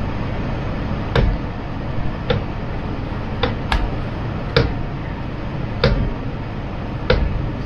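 A hand scraper clicking and scraping against the perforated metal plate of a wooden-framed mǐngedou press as dough is pushed through its holes, about seven sharp clicks roughly a second apart, over a steady background rush.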